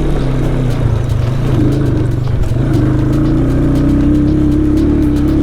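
Motorcycle engine running steadily while riding a dirt trail, its pitch dipping briefly about two seconds in and then holding steady.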